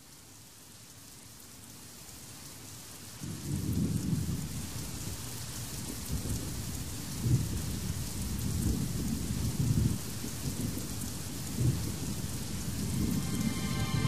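Rain falling with low rolling rumbles of thunder that swell in about three seconds in, a storm recording used as an intro. Music begins to come in near the end.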